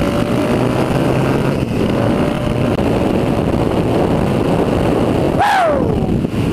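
KTM dual-sport motorcycle running steadily at highway speed, engine and rushing air heard from the rider's own bike. A brief falling tone comes about five and a half seconds in.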